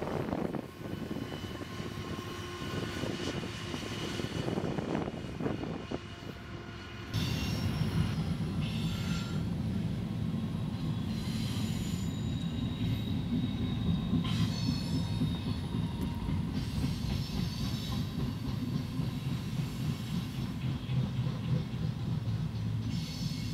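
BNSF freight trains rolling by: first a double-stack container train, then, after a cut about seven seconds in, a louder mixed freight of tank cars and boxcars. The wheels rumble steadily on the rails, with thin high squealing tones over the rumble in the second part.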